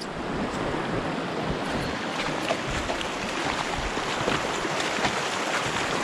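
Shallow mountain stream rushing steadily over rocks.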